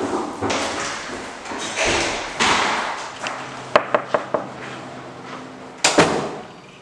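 Footsteps going down stairs in a stairwell. About four seconds in, a lever door handle and its latch give a few sharp clicks, then a loud clunk from the door comes just before the end.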